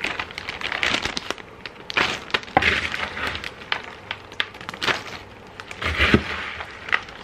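Zip-top plastic bag crinkling and rustling as handfuls of chocolate-coated Rice Chex cereal are dropped into it, in a run of short, irregular crackles.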